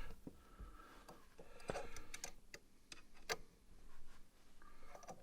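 Light, irregular clicks and ticks of a short wrench working air-ride line fittings.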